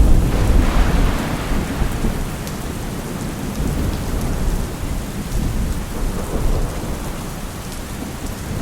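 Steady rain with a low, rolling rumble of thunder, loudest at the start and slowly dying away.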